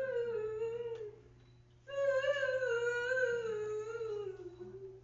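A high voice humming a slow, wordless melody in two long held phrases with a short break between them; the second phrase sinks in pitch near the end.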